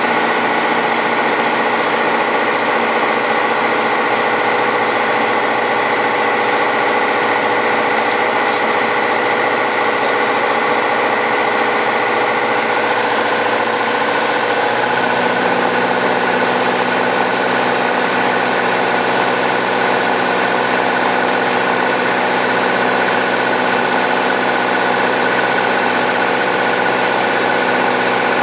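Light single-engine airplane's engine and propeller droning steadily, heard inside the cockpit. The pitch of the hum changes about halfway through.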